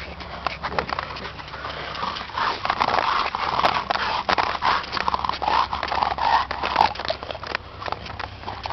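American Bully dogs making a run of short, repeated vocal sounds, mixed with many sharp clicks and scuffing noises.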